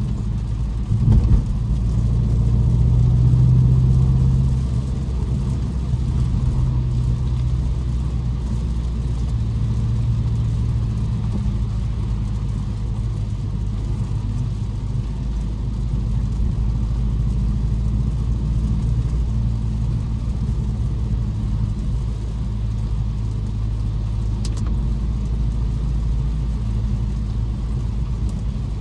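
BMW M550i's twin-turbo V8 running under light load in city driving, with tyre noise from a wet road. A sharp knock comes about a second in, the engine pulls harder and louder for a couple of seconds after it, then it settles into a steady low hum.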